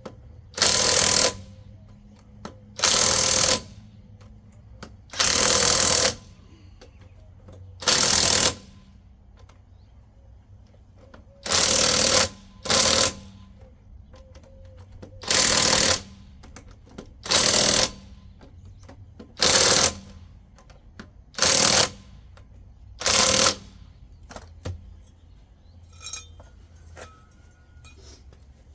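Impact wrench hammering in about eleven short bursts, each under a second and a second or two apart, as it runs lug nuts onto a car's wheel studs.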